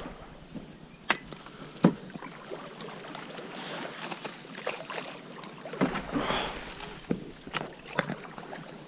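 Kayak being paddled through marsh reeds: several scattered sharp knocks and splashes of the paddle, with a longer swish of reeds brushing past a little past the middle.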